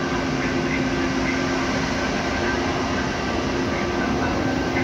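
Trenitalia Frecciabianca electric train running in along the platform track: a steady rolling rumble with a steady electric hum over it.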